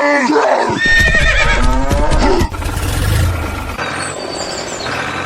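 An animal's drawn-out cry with a wavering, falling pitch, followed about halfway through by a burst of rushing noise with a low rumble that fades away.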